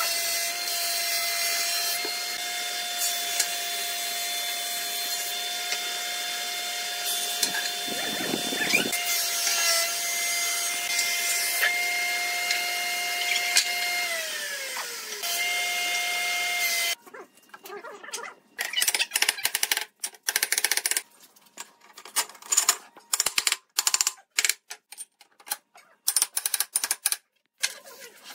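A workshop power tool or machine runs steadily with a constant whine, sliding down in pitch briefly and then cutting off abruptly after about 17 seconds. After that come scattered sharp knocks and clicks of pine boards and a steel bar clamp being set on the bench.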